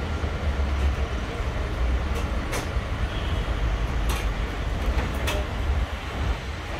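Steady low rumble of a doner kebab shop's vertical gas grill and kitchen extraction, with several sharp metallic clicks of the doner knife and utensils.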